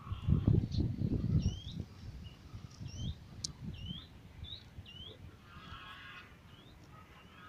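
Wind buffeting the microphone in gusts for the first two seconds or so. Then a bird calls repeatedly: short hooked whistled notes, about six of them, roughly one every half second to a second, growing fainter later on.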